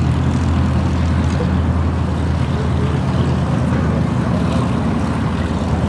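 Twin Wright R-2600 radial piston engines of a taxiing B-25 Mitchell bomber, running as a steady low drone.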